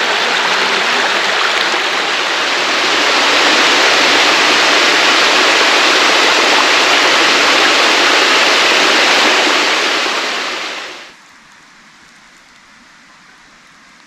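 Rushing water, loud and steady, cutting off suddenly about eleven seconds in and leaving only a faint outdoor background.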